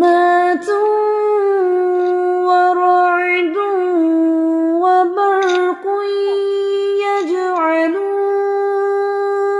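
A woman's voice reciting the Quran in slow, melodic tarteel, drawing out long held notes with small turns in pitch and a brief break about six seconds in.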